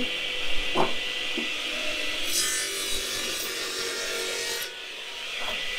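Electric log saw running with a steady motor whine; about two seconds in, its big circular blade cuts through a wooden split for a couple of seconds, a harsh hissing rasp that ends as the cut finishes, and the saw runs on.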